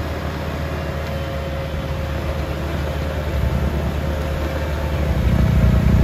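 Sidewalk tractor's engine running steadily under load while its front-mounted snowblower churns through the snow and throws it aside; the engine grows louder near the end as the machine comes closer.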